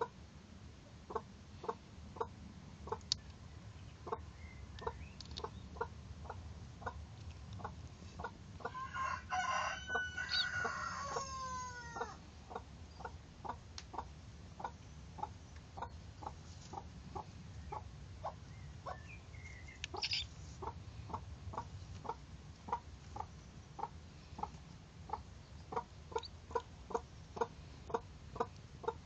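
Chicken clucking steadily, short low clucks about two a second, getting louder near the end. About nine seconds in, a rooster crows for about three seconds, its pitch sliding down at the end.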